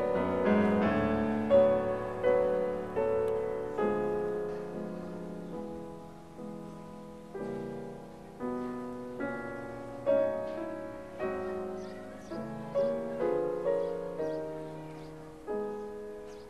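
Background piano music: slow struck chords, roughly one a second, each ringing and dying away, the whole passage gradually fading out toward the end.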